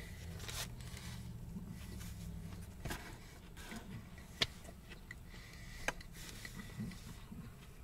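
A person quietly chewing food, with a few faint clicks and small taps over a low steady hum.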